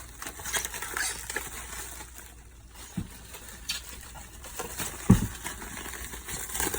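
Parts and packaging being handled: scattered light clicks and rustles, with a dull knock about three seconds in and a louder one about five seconds in.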